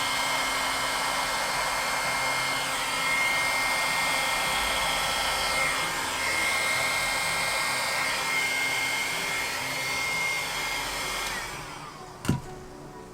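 Hair dryer blowing steadily with a high whine, then winding down as it is switched off near the end, followed by a single sharp click.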